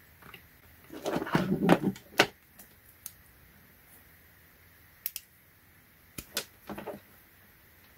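Multimeter test leads being handled: a burst of rustling and plastic clatter about a second in, then a series of short sharp clicks and knocks as the plastic probe ends are worked with the fingers.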